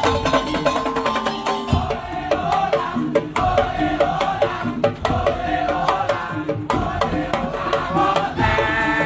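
Music with drums and fast, busy percussion under a melodic line.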